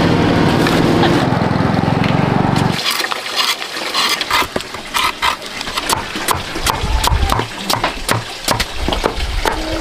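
A steady engine-like running noise, then about three seconds in an abrupt change to a rapid, irregular string of sharp cracks and snaps, like dry wood or stems breaking.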